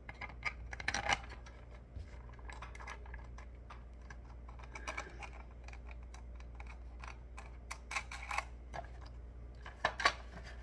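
Light clicks and taps of a hard 3D-printed plastic mask being handled, its hinged jaw and rubber-band hooks being worked by hand. The sharpest clicks come about a second in and near the end.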